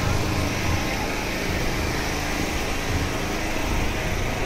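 Electric power generator running steadily, a constant low drone.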